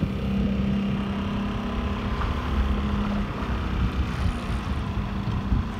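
A boat's motor running with a steady hum, under a constant low rumble of wind on the microphone; the hum weakens about three seconds in.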